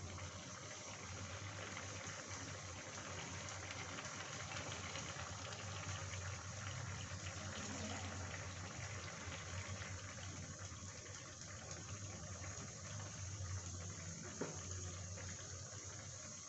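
Chickpea curry bubbling as it simmers in a frying pan: a steady soft bubbling hiss over a low hum, with one small click near the end.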